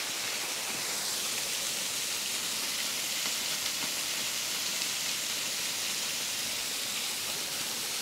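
Waterfall running low, its thin stream splashing steadily onto rock as an even, high hiss.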